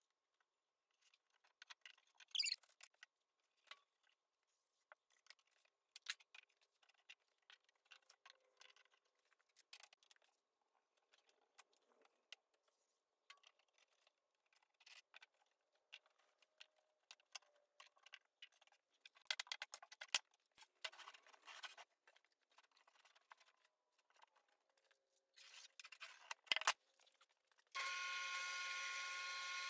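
Scattered light clicks, taps and scrapes of hands working tape along a wooden edge strip. Near the end a bandsaw starts up and runs steadily.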